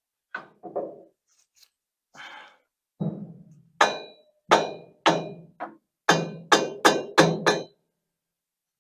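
A few light knocks, then a run of about ten sharp, ringing taps on the 1958 John Deere 530's carburetor, coming faster toward the end, to break the stuck carburetor free of its mounting once its bolts are out.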